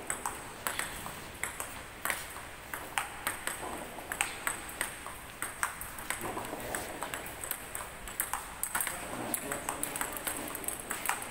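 Table tennis balls clicking off bats and the table in quick, irregular succession, several a second, as beginners hit balls in turn.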